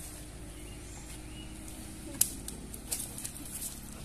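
Handling noise of a fish being reeled in and landed on a spinning rod: scattered light clicks and taps, one sharper about two seconds in, over a low steady rumble.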